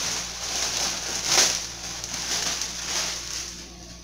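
Plastic packaging crinkling and rustling as it is opened by hand, with a louder crackle about a second and a half in, growing quieter near the end.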